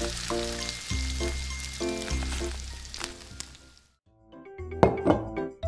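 Hot oil sizzling steadily as tiny tortilla chips deep-fry in a miniature wok, fading out about four seconds in. Light background music plays along.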